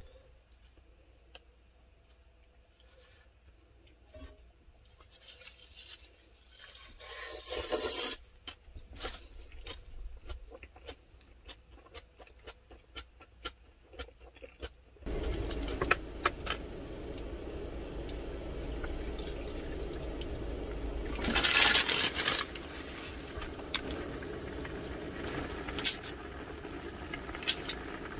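Light taps and clinks of chopsticks against a cast-iron skillet, with a short rushing burst about eight seconds in. About halfway a steady hiss starts suddenly: a portable gas stove's burner running under a pan of broth, with more clinks and a louder rushing burst a few seconds later.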